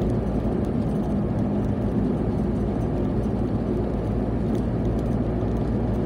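Car engine and road noise heard from inside the cabin while driving at a steady speed: an even, low rumble with no changes.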